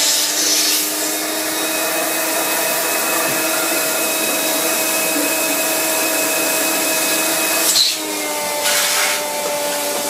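AquaVac wet-and-dry vacuum cleaner running steadily, sucking out a blocked washing machine's drain hose. About eight seconds in its note dips briefly and then settles a little higher.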